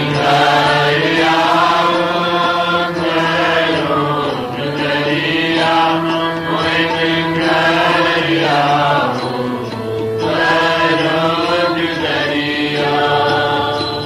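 Sikh devotional hymn singing (kirtan): a voice sings long, gliding chanted phrases over a steady held drone.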